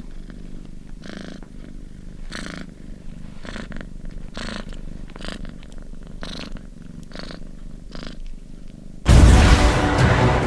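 A domestic cat purring, swelling and easing about once a second with each breath. About nine seconds in, loud film music cuts in over it.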